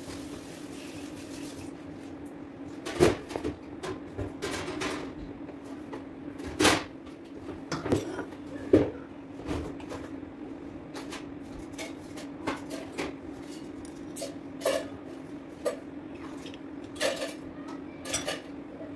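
Metal knife and cake server clicking and clinking against a wooden cake board and a ceramic plate as a slice of chocolate cake is cut and lifted out: a string of irregular sharp knocks over a steady low hum.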